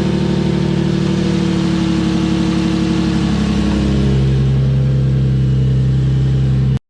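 Lexus IS300's 2JZ-GE straight-six running with newly fitted aftermarket headers, a steady idle that settles to a slightly lower pitch about four seconds in. The sound cuts off suddenly near the end.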